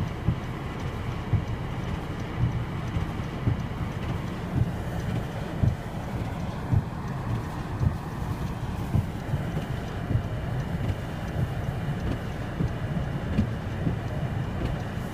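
Blizzard wind buffeting the microphone: a steady low rumble broken by frequent short gusty thumps.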